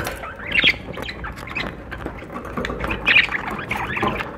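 Budgerigar squawking close to the microphone: two loud squawks, about half a second in and again about three seconds in, with softer chattering between them.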